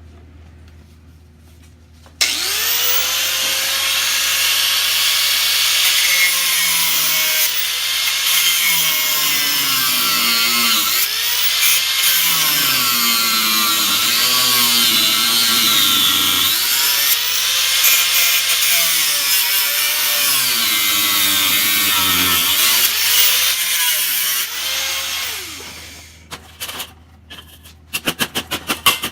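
Handheld 4-inch angle grinder with a cutoff disc cutting through a stuck bolt that spins instead of coming loose. It starts about two seconds in, its pitch dips and climbs again each time the disc bites, and it winds down near the end, followed by a few light taps.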